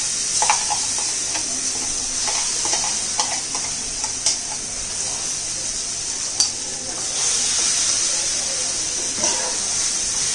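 Hot oil sizzling in a flat pan as a wet coconut-coriander paste is tipped in and stirred: a steady high hiss, with a few short taps and scrapes of a metal spatula against the pan.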